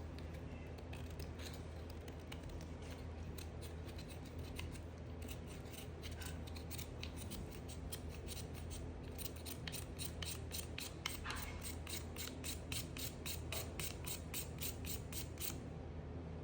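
Blade cutting through a bar of soap: a rapid, even run of crisp clicks, about four a second, picking up about five seconds in after a few scattered ones and stopping just before the end.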